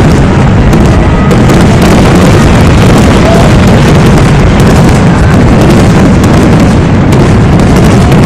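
Fireworks going off in a rapid barrage, the bangs running together into a continuous loud din that overloads the recording.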